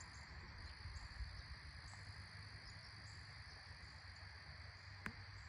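Faint evening chorus of crickets: a steady high-pitched trill, with a low hum underneath and a brief click near the end.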